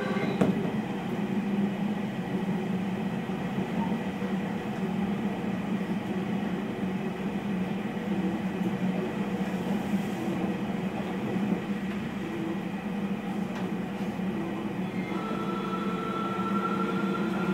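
Keio 1000-series electric train with a Toyo IGBT-VVVF inverter, heard from inside the car, running between stations with steady wheel and rolling noise. The inverter whine dies away at the start while the train coasts, then returns near the end, rising in pitch.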